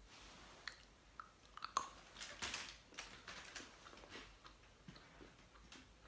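Faint chewing of a small chocolate from an advent calendar, with scattered soft clicks and crackles.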